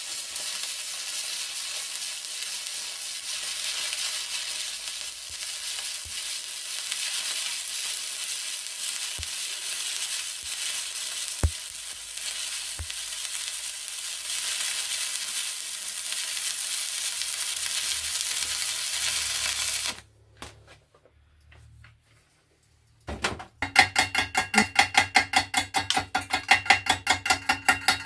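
Stick (arc) welder running a weld on 6 mm steel plate: a steady crackling sizzle of the arc that stops about twenty seconds in. After a short pause comes a rapid run of ringing metallic strokes, about five a second.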